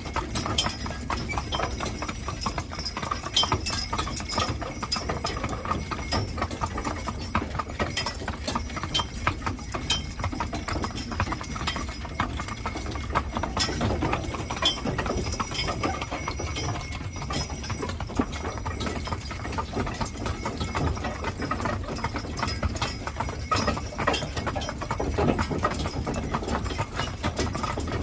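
Hooves of a pair of Haflinger horses clip-clopping steadily as they pull a wagon.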